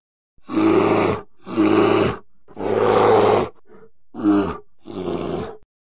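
Bear growling in five rough calls, each under a second long, with a short faint call in the middle.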